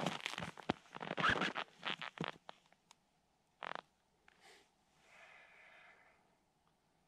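Winter clothing rustling and boots crunching on snow as a person steps up and sits down on a folding stool. The sound dies away about two and a half seconds in. One soft knock follows a second later.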